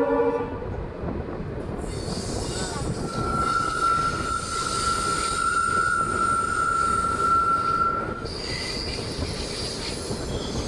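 An Indian Railways express train running, heard from an open coach door: the locomotive's horn, a diesel WDP-4 type horn fitted to a WAP-4 electric, cuts off just after the start, leaving a steady rolling rumble of the coaches on the track. From about three seconds in to about eight seconds in a steady high-pitched wheel squeal rings over it, followed by fainter, higher squeals.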